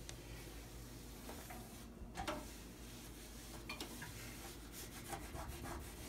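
Faint rubbing of a microfiber towel wiping a white stove top, with a few light clicks as it moves over the surface.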